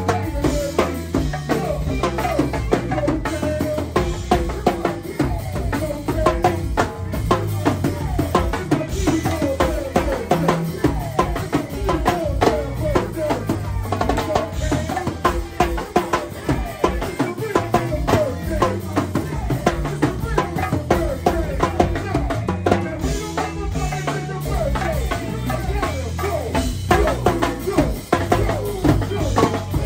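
Live go-go band music: a drum kit and a set of chrome LP timbales struck with sticks play a dense, steady groove over a stepping bass line.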